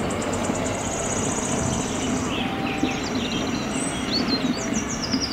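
Mercedes-Benz concrete mixer truck running steadily, a low engine and drum rumble. A fast high trill sounds for about the first two seconds, and birds chirp over it from about halfway.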